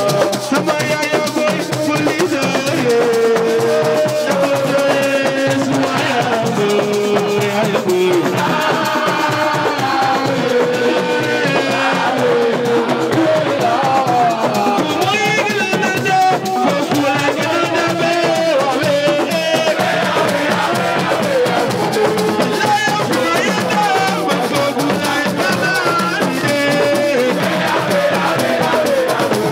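Music: a voice singing over drums and a shaker rattle.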